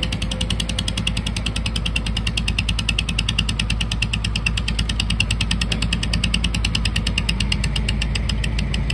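Garden tractor's small engine running under load as it drags a weight-transfer sled, with a rapid, even pulse.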